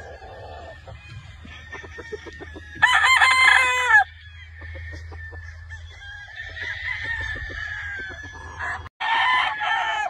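Young gamefowl rooster (a stag) crowing: one loud crow lasting about a second, about three seconds in, and another crow near the end. Fainter crowing from other roosters can be heard in between.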